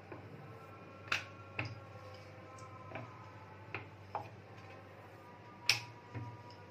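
Wooden rolling pin and wooden rolling board knocking and clacking in irregular single knocks while a large sheet of dough is rolled out and handled, with one sharper, louder clack near the end.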